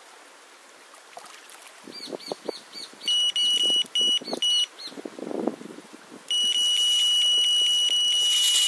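Electronic carp bite alarm sounding a high steady tone. It gives three short beeps about three seconds in, then holds one continuous tone from about six seconds in, the sign of a fish taking line in a run. Just before the beeps comes a quick series of short chirps.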